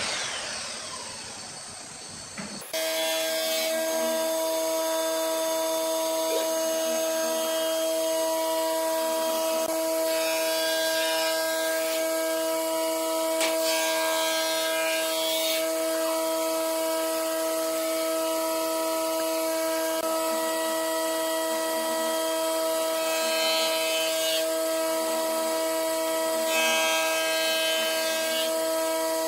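A steady machine hum at one fixed pitch starts abruptly about three seconds in and runs on unchanged, after a short falling whoosh at the very start.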